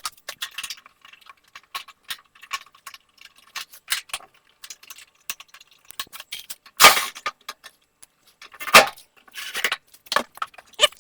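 Screws and small metal parts clicking and clinking as screws are set into a dryer's sheet-metal top panel, with a few louder knocks about 7 and 9 seconds in.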